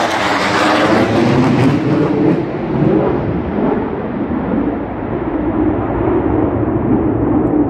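F-15 Eagle's twin jet engines passing low overhead, a loud rushing roar. Its sharp, hissing top fades over the first few seconds as the jet flies away, leaving a steady deep rumble.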